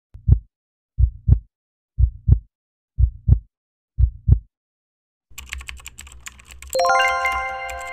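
Heartbeat sound effect: five low double thumps, lub-dub, about one a second. After a short gap, rapid clicking starts over a low hum, and a sustained ringing chord comes in about a second later.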